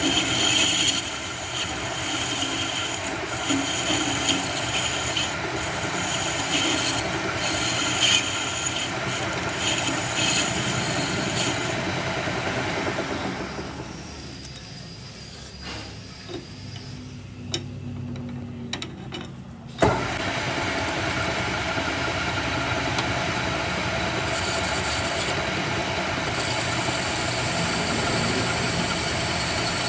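A machine running steadily with a high-pitched whine on top. It dies away about halfway through, leaving a quiet stretch with a few light ticks, then comes back abruptly with a click and runs on steadily.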